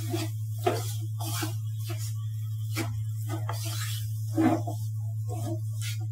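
Wooden spatula stirring and scraping softening lumps of jaggery in a little water in a nonstick pan, in irregular short strokes, over a steady low hum.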